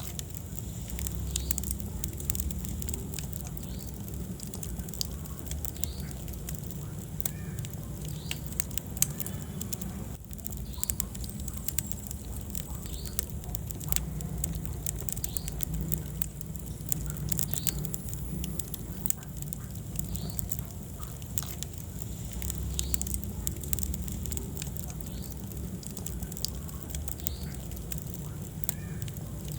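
Wood fire burning in a fireplace, crackling with frequent small sharp pops over a low steady rumble of the flames.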